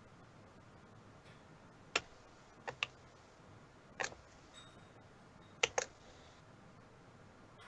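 A few sharp, isolated clicks or taps, some in quick pairs, spaced a second or two apart.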